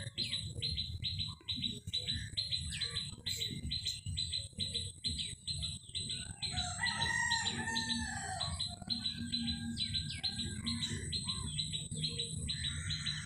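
A bird chirping over and over, short chirps about four a second, with a chicken or rooster calling briefly about seven seconds in.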